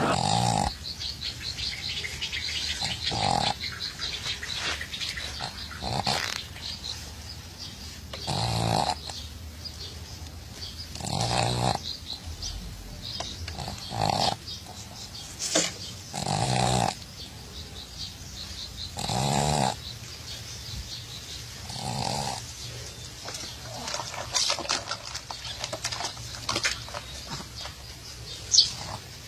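A sleeping dog snoring, one snore about every two and a half to three seconds. The snores stop near the end, leaving faint scattered clicks and a brief high squeak.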